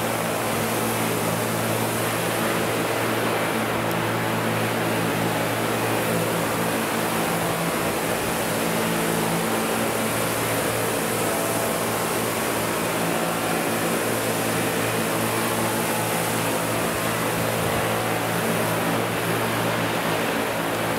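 Two large radio-controlled Vario CH-47 Chinook scale model helicopters in flight: a steady drone from their tandem rotors and drive, a hum of several tones over a hiss.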